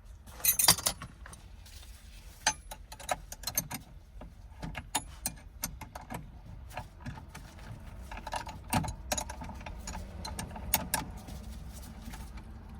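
Hand tools and small metal parts of a shifter cable fitting clicking and clinking while a bolt is tightened: irregular sharp metallic clicks, with a louder cluster about half a second in.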